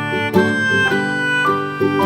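Background instrumental music: a bright melody of pitched notes over plucked strings, with a new note every fraction of a second.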